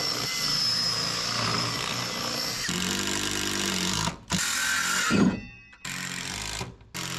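Cordless drill running into a wooden board: one long run of about four seconds, its motor pitch rising and dropping toward the end as it bites, then three shorter bursts.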